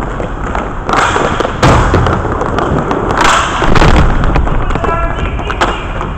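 Goal-mouth scramble in inline hockey: sticks and puck clattering, skate wheels scraping the rink floor, and several sharp thumps as the goal and goalie are hit.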